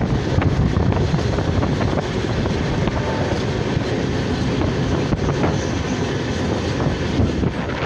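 Passenger train running at speed, heard from the coach door: a steady rumble of wheels on the rails with a light clatter.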